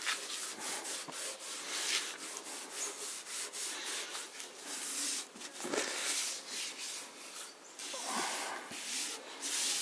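A cloth rubbing back and forth in repeated strokes along the grain of an oak cabinet top, wiping off the streaks of freshly applied pale boiled linseed oil.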